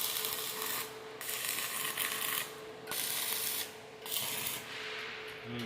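Electric arc welding: a crackling hiss in four bursts of roughly half a second to a second and a half, broken by short pauses, over a steady hum.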